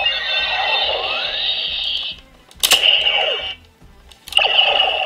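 Neo Decadriver toy belt playing electronic sound effects through its small built-in speaker: a steady electronic tone for about two seconds. Then come two sharp clicks of the belt's mechanism, about a second and a half apart, each followed by about a second of electronic tone.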